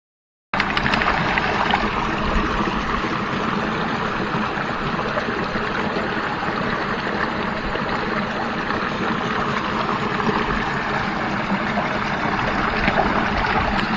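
Small mountain creek running over rocks, a steady rush and babble of water that starts abruptly about half a second in.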